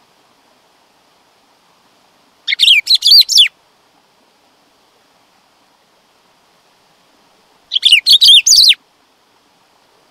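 Black-throated saltator (bico-de-pimenta) singing two short phrases of quick, sweeping whistled notes, each about a second long and about five seconds apart.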